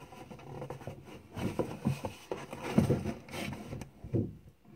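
Cardboard toy box being picked up and handled, scraping and rubbing with a series of irregular knocks that begin about a second in.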